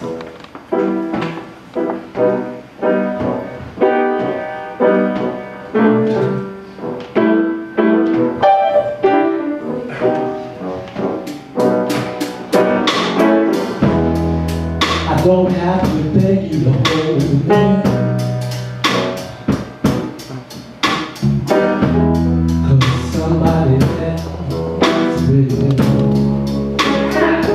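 Live blues band playing a song: pitched keyboard-like notes at first, cymbals coming in about eleven seconds in, and a deep bass line and guitar joining a few seconds later.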